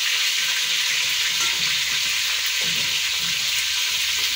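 Chicken pieces frying in hot oil: a steady, even sizzle.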